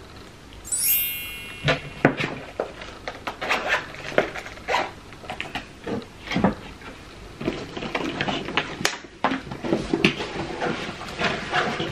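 A backpack and belongings being handled: a short high rasp about a second in, then an irregular run of knocks, clicks and rustles as things are moved about and the bag is picked up.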